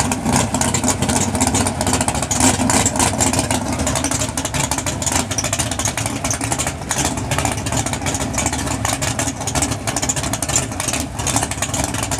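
Drag-race car engine noise, running steadily without a clear rev-up or launch.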